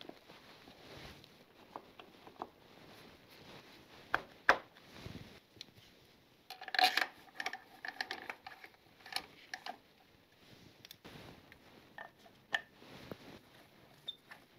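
Scattered light metallic clicks and taps of a T-handle hex key and cover bolts as the front sprocket cover is fastened back onto a Suzuki GSX-R engine. There is a sharp click about four and a half seconds in, and a short ringing metal clatter a couple of seconds later.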